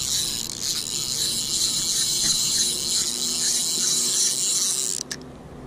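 Spinning reel cranked fast as a hooked bass is reeled in: a steady high whirring with a faint tick about three times a second from the turning handle. It stops abruptly about five seconds in, followed by a few light clicks.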